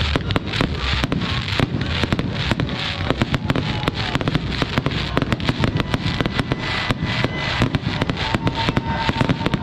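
Fireworks going off in a dense, continuous barrage: several sharp bangs and crackles a second, overlapping with no gaps.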